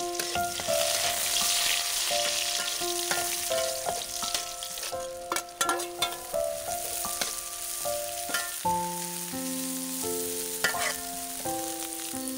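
Garlic and oil sizzling in a metal wok, with the spatula clicking and scraping against the pan as chopped lemongrass, galangal, kaffir lime leaves and chili are stirred in. Soft background music plays a slow melody of held notes throughout.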